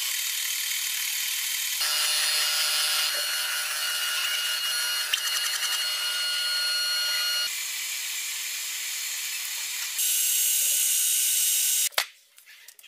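Metal-cutting machine tools: a lathe turning a steel shaft and a grinding machine grinding steel, a steady high-pitched hiss and whine whose character changes abruptly several times. About twelve seconds in it cuts off with a sharp click and drops to faint sounds.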